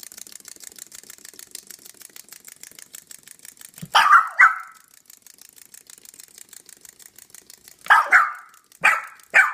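Small white dog barking in short, sharp barks: a quick pair about four seconds in, then four more in quick succession near the end. Before the first bark there is a fast, steady run of light clicks.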